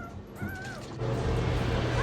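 A German shepherd puppy whines briefly, in short rising-and-falling high whimpers. About a second in, a much louder steady sound with a low hum suddenly cuts in and covers it.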